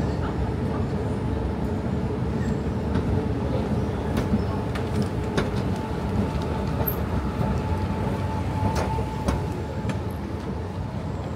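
Escalator running with a steady low rumble, a faint steady hum and a few sharp clicks over it, in a subway station.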